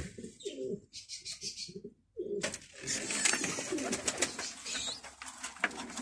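Domestic pigeons cooing with low, wavering coos, broken by a brief drop-out about two seconds in. Scattered sharp clicks run through the second half.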